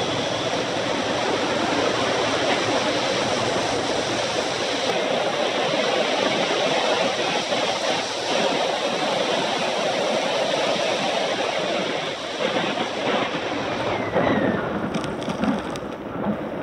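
Steady rush of wind buffeting the microphone, mixed with tyre roar on asphalt, during a fast downhill ride. A few short knocks come near the end.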